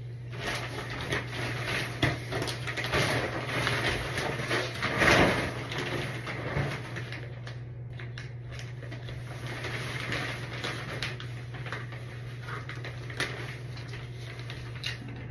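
Thin plastic shower curtain liner and curtain fabric rustling and crinkling as they are unfolded and handled, an irregular run of crackles loudest about five seconds in and thinning out later.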